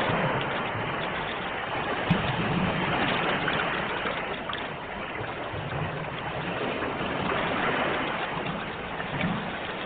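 Sea waves washing in a steady rushing wash that swells and eases slowly, with a single brief click about two seconds in.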